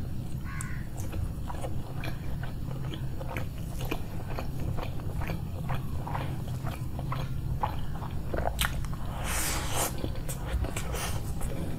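A person chewing and biting food close to the microphone, with many short crisp crunches and one louder, noisier stretch of about a second about three-quarters of the way through.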